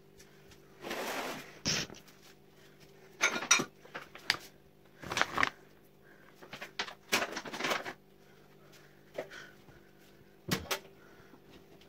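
Household handling noises: rustling and knocks as a laundry pod is taken from its plastic bag, with a few sharp clicks. A steady low hum runs underneath.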